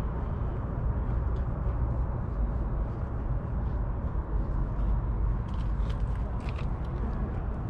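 Low, irregular rumble of wind buffeting the microphone over faint outdoor background noise, with a few light clicks about five to seven seconds in.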